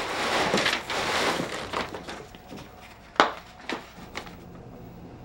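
Handling noise as a package is opened and its contents taken out: a rustling noise that fades, then three sharp clicks of a hard plastic object about half a second apart.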